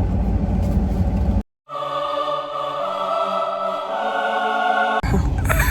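A low, steady rumble that cuts off about a second and a half in. After a moment of silence comes a short stretch of music with long held choir-like voices, ending abruptly about five seconds in when the rumble returns.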